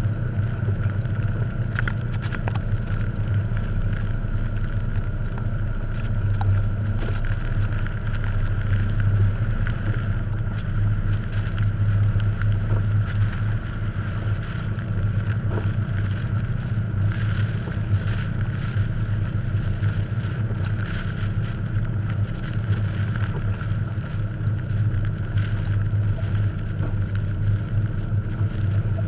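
1989 Jeep Cherokee XJ driving slowly through deep fresh snow: a steady, unbroken engine and drivetrain drone with scattered small clicks.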